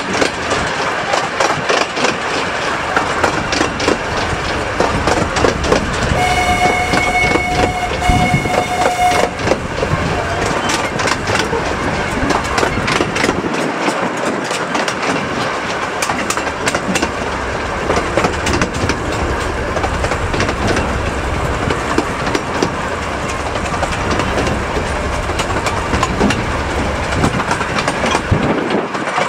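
Miniature railway train running on its narrow-gauge track, heard from a passenger coach: a steady rumble with wheels clattering over the rail joints. A few seconds in, the locomotive sounds a steady horn note lasting about three seconds.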